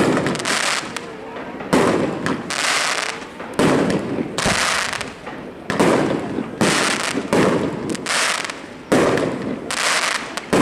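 Aerial fireworks bursting: about five loud bangs, roughly two seconds apart, each followed by a crackling tail.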